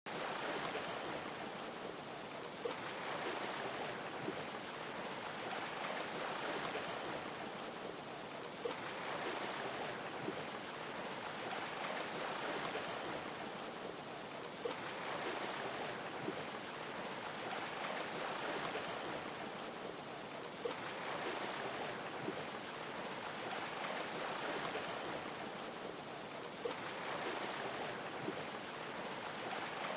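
Sea waves washing in a steady hiss of water that swells about every six seconds, each swell starting with a faint click.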